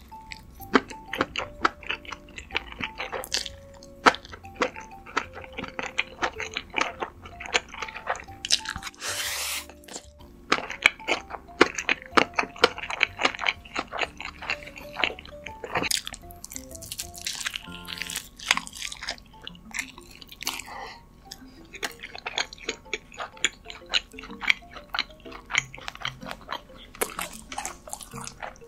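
Close-miked eating sounds: chewing, crunching and wet mouth clicks from spicy noodles and crisp fried food, over soft background music with held notes.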